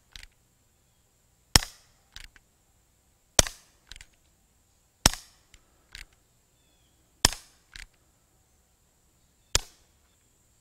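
Umarex Colt Peacemaker .177 CO2 BB revolver firing five single shots, a sharp crack about every two seconds, each followed by a fainter click.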